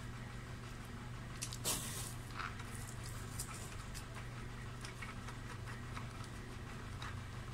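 Faint clicks and rustles of small screws and a plastic instrument-cluster housing being handled as the screws are fitted into its back, the clearest click a little under two seconds in, over a steady low hum.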